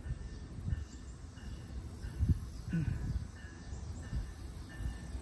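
Outdoor ambience: a low, uneven rumble with faint, short high-pitched insect chirps coming and going.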